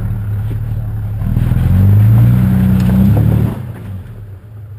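Toyota 80 Series LandCruiser's engine revving hard as it climbs a rock step. The revs rise about a second in and drop back after about three and a half seconds.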